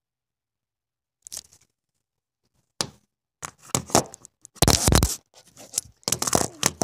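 Scratchy, scraping handling noise from a phone's built-in microphone as the phone is gripped and moved, in irregular bursts starting about a second in.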